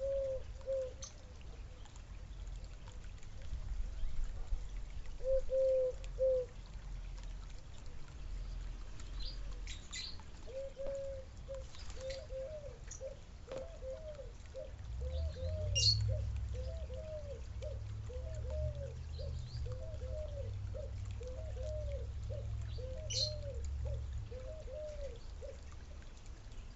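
A dove cooing: a few low coos at first, then a long, even series of short rising-and-falling coo notes, about one and a half a second. Small birds chirp now and then over a low rumble.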